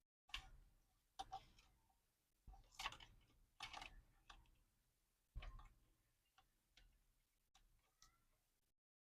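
Faint, irregular clicks and knocks of hand work on ceiling fan parts, the sharpest in the first few seconds and lighter, sparser ones after.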